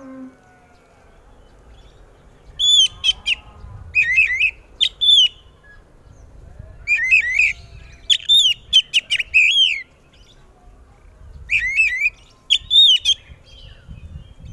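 Oriental magpie-robin (kacer) singing loudly in three bursts of sharp, quickly sweeping whistled notes, with short pauses between them.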